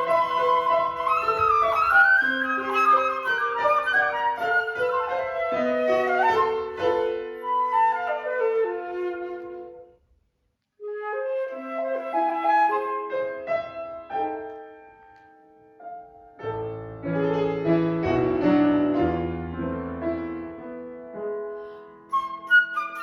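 Classical flute and piano duo playing, the flute carrying the melody over piano accompaniment. The music breaks off briefly about ten seconds in, then resumes, and heavier low piano chords come in about two-thirds of the way through.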